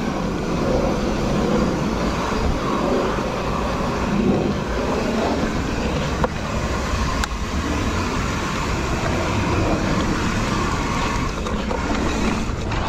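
Cannondale Moterra electric mountain bike being ridden on a dirt trail: a steady rush of wind and tyre noise on a GoPro's microphone, with two sharp clicks from the bike a little past halfway.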